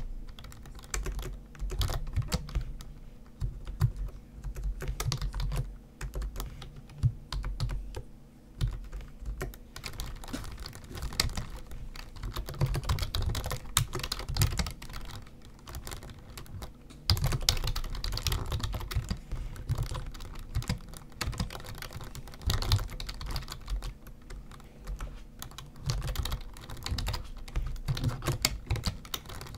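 Typing on a computer keyboard: irregular runs of key clicks, thinning out in a couple of short lulls early on and busier in the second half.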